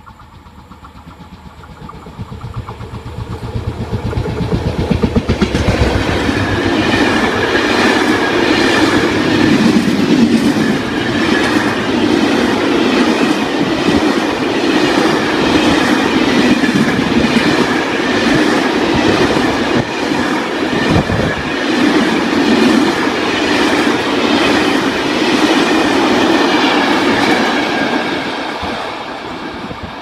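FS Class E.652 electric locomotive approaching and passing, its low hum growing over the first few seconds. Then comes the steady rumble and clatter of a long freight train of empty flat wagons rolling by, easing off near the end as the train draws away.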